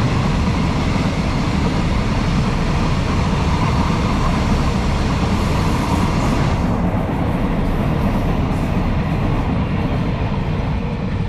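Container wagons of a freight train rolling past on the rails: a steady wheel-on-rail rumble with a rush of noise. The higher hiss drops away about two-thirds of the way through as the last wagons pass.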